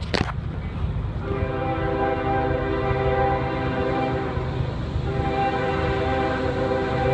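Diesel freight locomotive's air horn sounding long chords over the low rumble of the train rolling past a grade crossing; fresh blasts begin about a second in and again about five seconds in.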